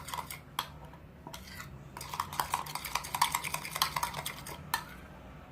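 Slime being stirred in a bowl: rapid clicks and scrapes of a utensil against the bowl, thickest in the middle and thinning near the end.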